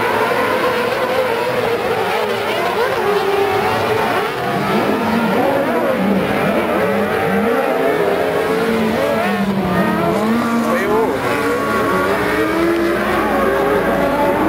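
Several kartcross buggies racing, their high-revving motorcycle engines overlapping and rising and falling in pitch as they accelerate, lift off and shift.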